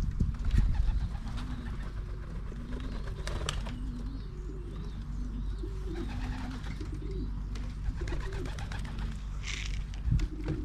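Racing pigeons cooing, several low wavering coos repeating and overlapping, with scattered knocks and a short rustling burst near the end.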